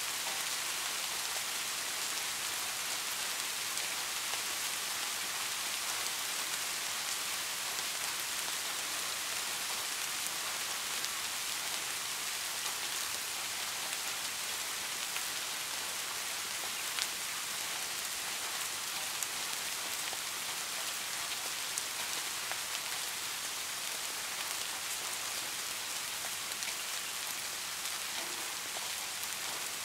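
Heavy rain falling steadily: a dense, even hiss with a few sharper drop ticks here and there.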